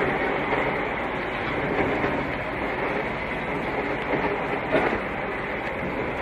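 Steady road and engine noise inside a moving truck's cab, with a continuous rattle and one brief knock about five seconds in.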